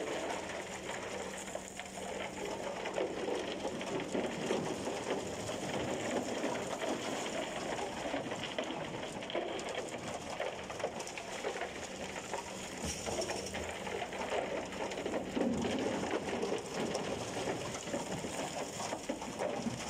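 Broken concrete chunks pouring out of a rotating transit mixer drum and clattering down the steel chute onto a pile, a continuous rattle. A steady low hum runs underneath and stops about three-quarters of the way through.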